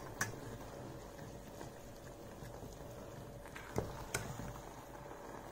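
A fork quietly stirring noodles in a metal saucepan, with a few faint clicks of metal on metal, two of them close together about four seconds in.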